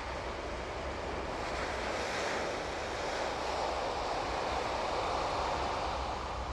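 Sea surf washing onto a sandy beach: a rushing noise that swells over a few seconds and then eases, over a steady low hum.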